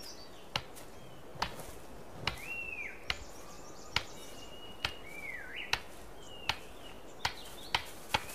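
Sharp clicks repeating a little more than once a second while a male satyr tragopan performs his courtship display dance, with a few short whistled bird calls sliding in pitch between them.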